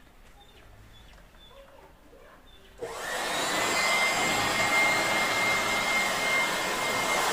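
A handheld electric blower switches on suddenly about three seconds in and runs steadily with a thin high whine, blowing air across a wooden door panel. Before it starts there are only a few faint taps.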